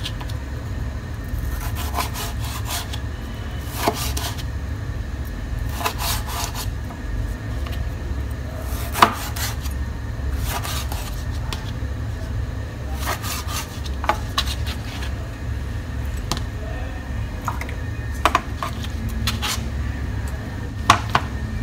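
Kitchen knife slicing tomatoes into wedges on a plastic cutting board: the blade knocks on the board every second or two, sometimes in quick clusters, over a steady low hum.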